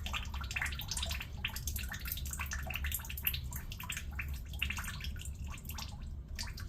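Engine oil, mixed with some water, draining from a car's oil pan and splattering irregularly into a drain pan, over a steady low hum.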